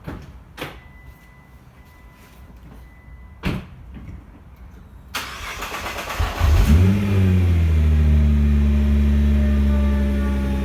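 A 2012 Nissan GT-R's 3.8-litre twin-turbo V6 being started: a few clicks and a faint steady tone, then a hiss about five seconds in. The engine cranks briefly and catches about six seconds in, its revs flaring up and dropping back. It then settles into a steady idle that eases slightly toward the end.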